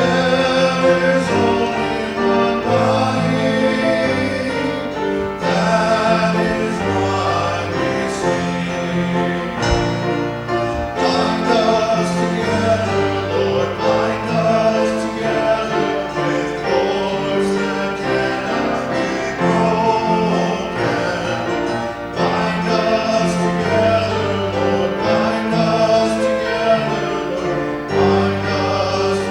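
Worship song sung by several voices with instrumental accompaniment, continuous and at full level.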